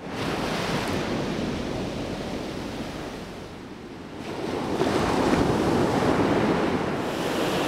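Small waves breaking and washing up a sand beach, the surge easing about three seconds in and building again about four seconds in.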